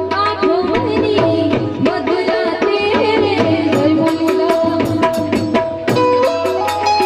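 Live Indian devotional bhajan music: harmonium melody with hand drums and small hand cymbals striking a quick, even beat of about four to five strokes a second.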